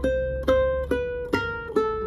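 Cutaway nylon-string classical guitar played fingerstyle: single plucked notes at an even eighth-note pace of 70 bpm, about five notes in two seconds, each ringing on into the next, as a finger exercise.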